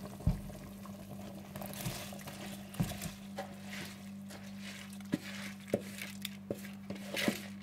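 Soaked sella rice scraped with a wooden spoon from a plastic bowl into a pot of boiling stock: a soft hiss of sliding, splashing rice and bubbling liquid, with several sharp knocks of the spoon against the bowl and pot. A steady low hum runs underneath.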